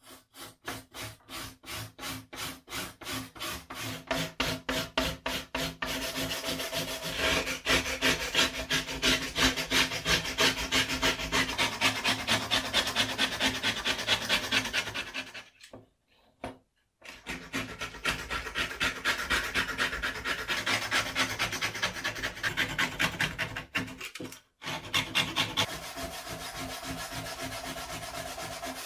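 Rhythmic hand strokes scraping or filing across the rusty steel blade of an old hand saw. The strokes are separate and slow at first, about three a second, then come fast and almost continuous, with two short pauses. The blade rings faintly under them.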